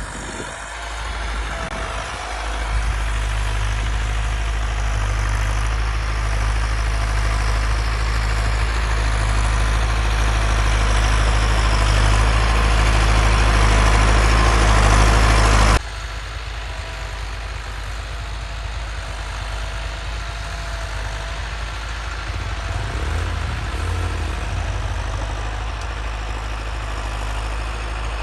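Massey Ferguson 385 tractor's diesel engine running while pulling a plough, growing steadily louder over about a dozen seconds. About two-thirds of the way in it drops suddenly to a quieter, steady engine sound.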